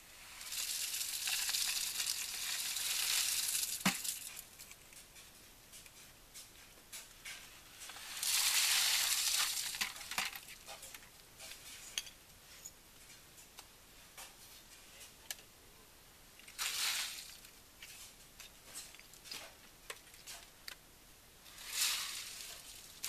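Wet concrete poured from buckets into a rebar-filled form: four separate pours, each a rushing, splattering slide lasting one to three seconds, with small clicks and taps of stones and rebar between them.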